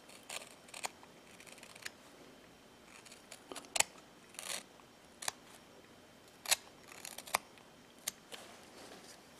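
Carving knife whittling a small wooden figure: a string of short, sharp snicks as the blade slices thin chips from the wood, irregularly spaced, with the loudest cuts about halfway through and a little later.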